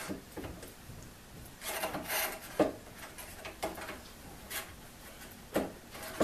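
Saw set pliers worked tooth by tooth along a one-man crosscut saw blade. A short metal click comes about once a second as each squeeze drives the ram and bends a tooth over the anvil, with a scrape near two seconds in as the pliers are moved along the steel plate.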